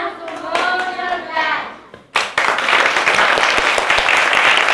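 A group of people applauding, the clapping starting suddenly about two seconds in and going on steadily, after a short stretch of voice.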